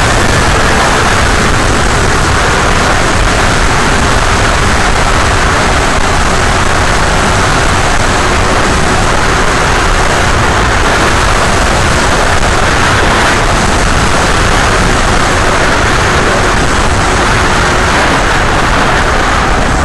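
Onboard recording from an RC airplane on its landing approach: a loud, steady rush of air and propeller noise with a faint steady hum underneath.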